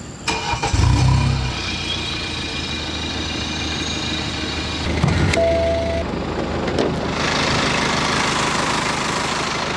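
A BMW 520d F10's four-cylinder turbodiesel swells loudly about a second in, then settles to a steady idle; it sounds like a truck. A short beep comes about five seconds in, and from about seven seconds the engine sounds brighter and harsher, heard from over the open engine bay.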